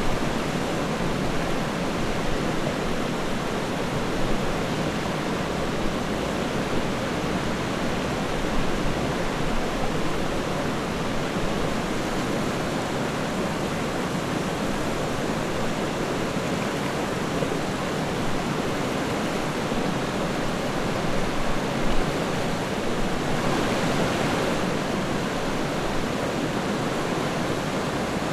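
Rushing river water: a steady, even flow of running water.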